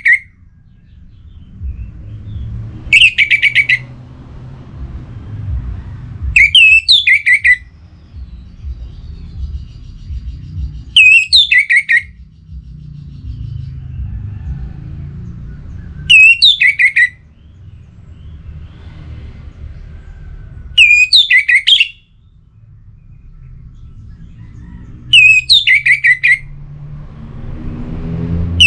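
Orange-headed thrush singing: six short, loud phrases of clear, falling whistled notes, one about every four to five seconds, over a low steady rumble.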